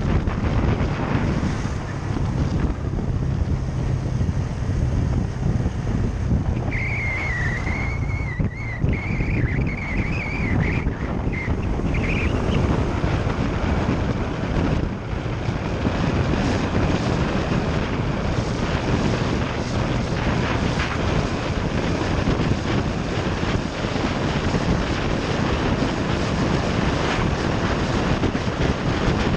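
Motorcycle engine running under way, with wind noise rushing over the microphone. A wavering high whistle sounds for several seconds about seven seconds in.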